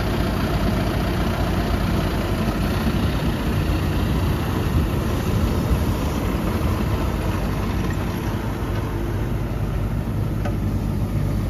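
Tractor engine running steadily as it pulls a Shelton drainage trencher, which cuts a narrow trench in the turf and backfills it with gravel from its hopper.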